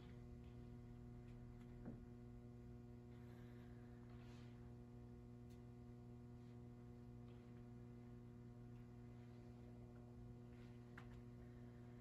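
Near silence: room tone with a steady electrical hum and a few faint ticks.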